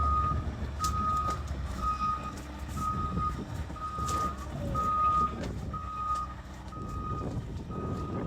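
Skid steer's backup alarm beeping steadily, about once a second, as the machine reverses, over the low rumble of its engine running.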